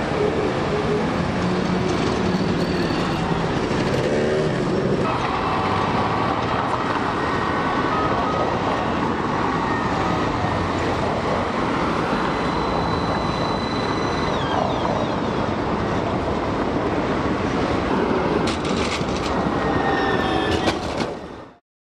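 City street traffic, then an AnsaldoBreda Sirio low-floor tram running on street track and passing close by, with a steady high tone for a few seconds in the middle and a run of sharp clicks as it goes by. The sound cuts off abruptly near the end.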